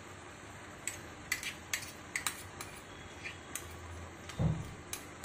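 A spoon clinking and scraping against a small bowl as poppy-seed paste is scraped out into a pan: a run of sharp clicks, with a dull thump about four and a half seconds in.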